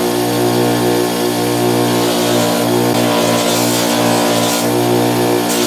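Electric buffing wheel running steadily with a constant motor hum, as parts are polished with buffing compound.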